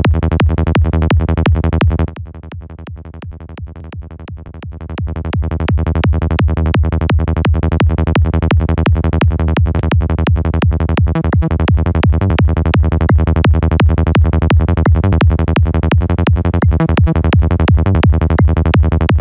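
A 170 BPM high-tech psytrance loop of a Sylenth1 synth bass and kick drum, run through FabFilter Saturn saturation, with fast, evenly spaced bass pulses. About two seconds in the loop drops noticeably quieter, then comes back to full level about five seconds in as the processor's settings are changed.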